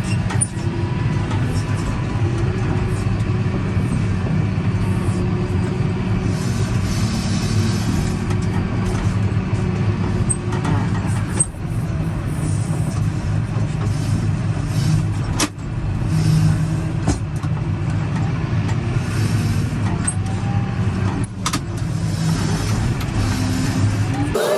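Tractor engine running steadily under load while working through the bales, with a few brief sharp breaks in the sound.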